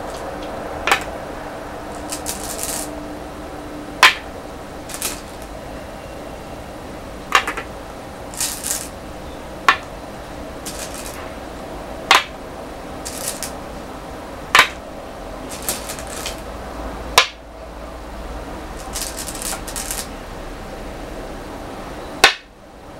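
Go stones being set down one by one on a wooden Go board: about eight sharp clacks, every two or three seconds, with softer rattling of stones between them.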